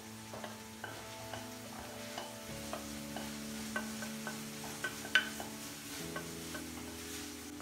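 A kitchen utensil stirring, with light clinks and scrapes and one sharper clink about five seconds in, over soft background music of sustained chords that change twice.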